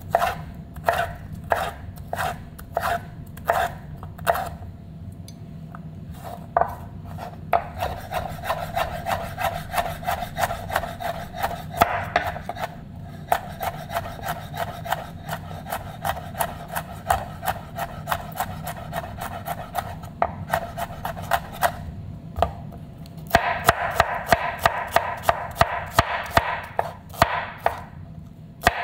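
Kitchen knife dicing ají pepper on a cutting board. It starts with spaced cuts, then moves to rapid chopping several strokes a second, with brief pauses and a louder fast run near the end.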